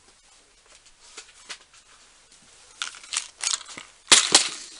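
Small metal fittings and their storage box being handled: light rustling and scattered clicks, then two sharp clicks a little after four seconds in.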